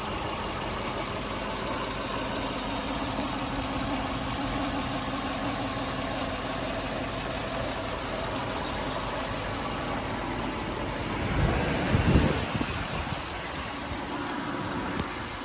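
1993 Lexus SC400's 4.0-litre 1UZ-FE V8 idling steadily after a cold start, heard from the open engine bay. A brief louder low rumble comes about three-quarters of the way through.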